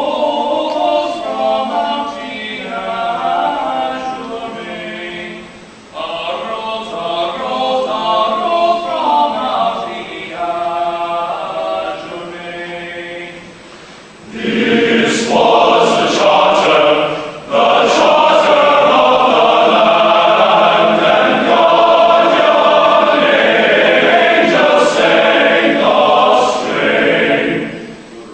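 Background music: a choir singing, quieter phrases at first, then swelling louder and fuller about halfway through.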